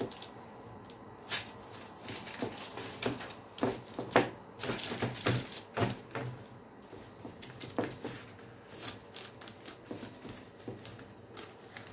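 Baking parchment rustling and crinkling on a metal baking tray as hands press and smooth a sheet of rolled yeast dough over it, with irregular soft rustles and taps.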